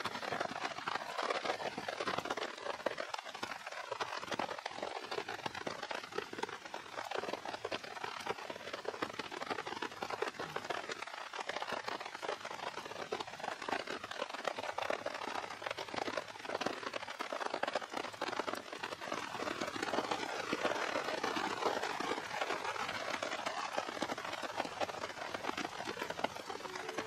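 Steady rain falling, a dense even patter with no let-up.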